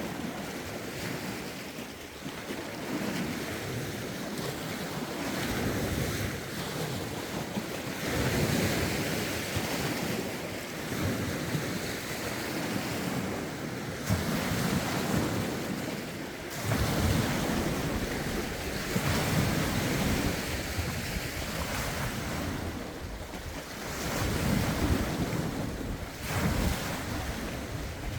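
Lake waves breaking and washing ashore in a series of swells every few seconds, with gusty wind rumbling on the microphone.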